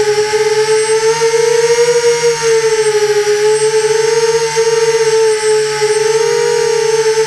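Small quadcopter's electric motors and propellers whining steadily, heard close up, the pitch drifting slightly up and down as it flies.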